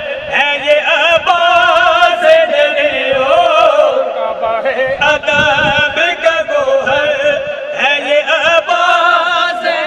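Men singing an Urdu devotional manqabat into microphones, two voices together, the melody drawn out in long, wavering notes.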